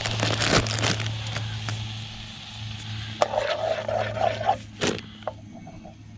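Gas canister camping stove burning steadily under a pot, with a spork scraping and tapping against the pot as garlic is stirred in it; a sharp knock stands out a little before the end.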